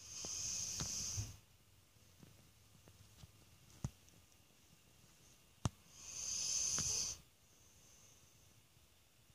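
A sleeping mixed-breed dog snoring: two long, hissing snoring breaths about six seconds apart, with two short sharp clicks in between.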